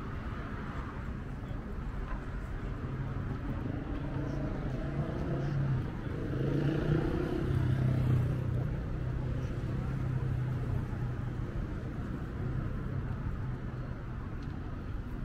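City street traffic running steadily, with one vehicle passing louder in the middle, swelling and fading over a few seconds.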